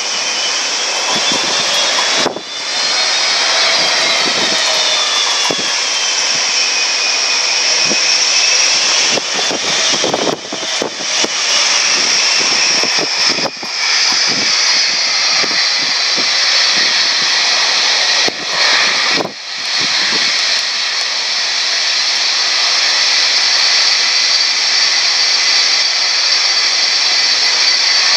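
Boeing 757 twin turbofan engines whining at taxi power. Several high whining tones slide up and down during the first half, as the jet turns, then settle into a steady whine, with a few brief dips in level.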